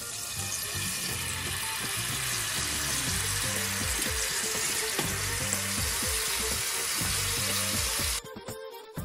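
Tamarind paste and its leftover soaking liquid sizzling steadily in a hot pan, with background music underneath; the sizzling cuts off suddenly near the end, leaving only the music.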